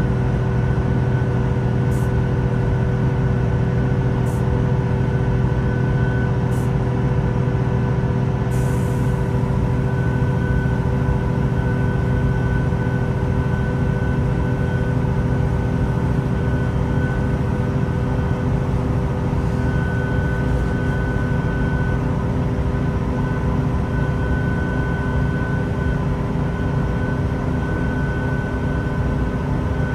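Inside a Great Western Railway Class 166 diesel multiple unit: the underfloor diesel engine and transmission give a steady drone with a deep hum and several fixed-pitch tones above it. A few faint clicks come in the first several seconds.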